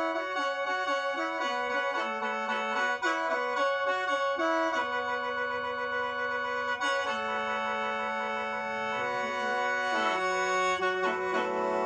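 Lao khaen, a bamboo free-reed mouth organ, played solo: a quick melody over steady drone notes. After about five seconds it moves to longer held chords.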